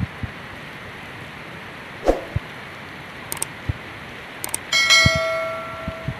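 Steady hiss of heavy rain, with occasional low thumps of wind on the microphone. About three seconds in come two pairs of mouse clicks, then a bell-like notification chime from a subscribe-button animation rings out and fades over a second and a half.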